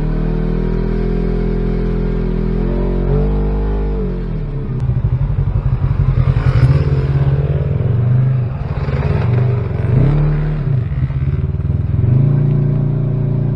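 Side-by-side UTV engine heard from inside the cab, running at a steady pitch for the first few seconds. Then its pitch drops and rises several times as the throttle comes off and on, before it settles steady again near the end.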